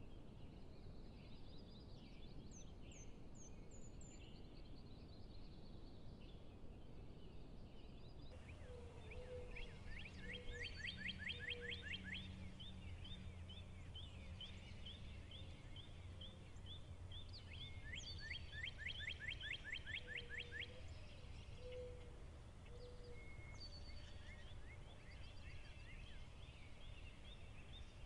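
Faint outdoor ambience of birds singing: two bouts of rapid trilled calls, about a third of the way in and again about two-thirds in, with scattered chirps and a few short low notes. A low steady rumble runs underneath.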